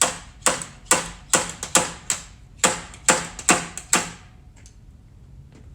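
A quick run of about ten sharp metal-on-metal taps, two or three a second, then stopping, as the pilot bearing is worked free from a 13B rotary engine.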